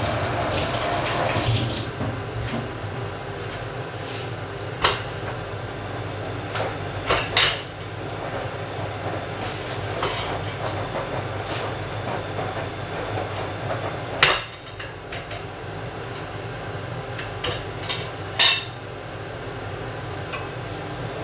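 Kitchen tap running for under two seconds as tomatoes are rinsed, then turned off. After that come scattered clinks and knocks of a knife and dishes on the kitchen worktop, a few of them sharp and loud, over a steady low hum.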